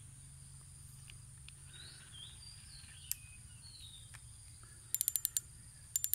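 Abu Garcia Black Max 10 spinning reel clicking in a quick run of sharp mechanical clicks about five seconds in, and again at the very end, as the reel is worked by hand; faint chirps and a low steady background noise before that.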